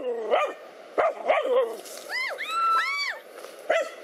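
Dogs barking at a cobra they are attacking. Several short sharp barks come near the start, about a second in and near the end, with a run of high yelps that rise and fall in the middle.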